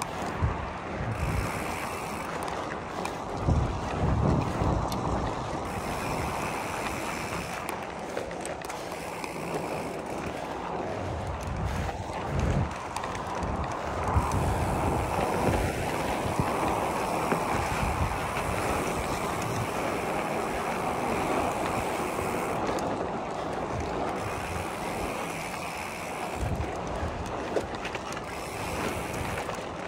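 Wind buffeting the microphone in irregular low gusts over a steady rushing noise.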